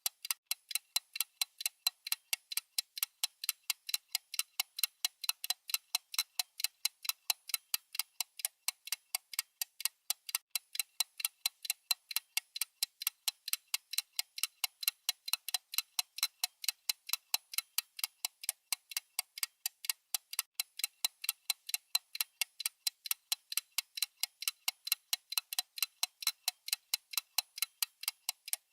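Mechanical watch movement ticking: rapid, perfectly even, high, crisp ticks, several a second.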